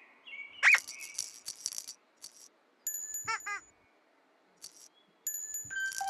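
Playful children's-TV sound effects with music: a quick swooping glide about half a second in, a burst of rattling, then bell-like tones and two bouncy, wavering chirps, with short pauses in between.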